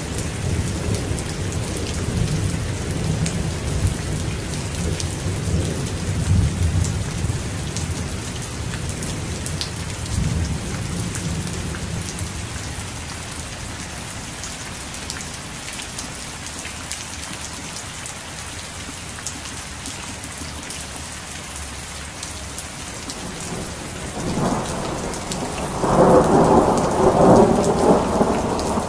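Heavy rain falling steadily, with thunder: a low rumble dies away over the first dozen seconds, and a louder peal of thunder swells up near the end.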